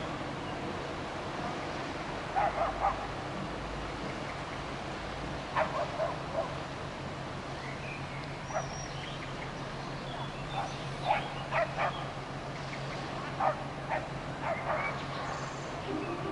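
A dog barking in short bursts, one to three barks at a time every few seconds, over a steady background hiss and a low hum.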